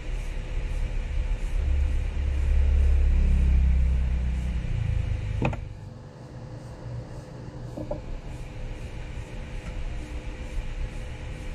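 A low rumble swells for a few seconds and then fades, and about halfway through there is a single sharp click as metal wire cutters are set down on the rubber repair mat; a steady low hum runs underneath.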